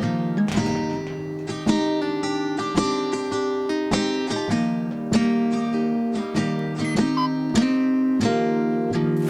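Acoustic guitar music, notes picked one after another in a steady run with some strummed chords.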